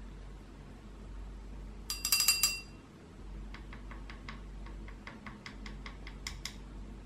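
Small clinks against glass, such as a paintbrush knocking in a glass rinse jar: a quick run of clinks with a brief ring about two seconds in, then a series of lighter ticks.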